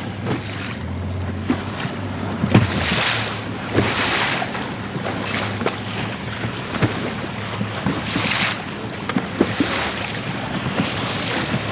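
Wind buffeting the microphone in gusts, over the wash of choppy sea water, with short scattered slaps of water.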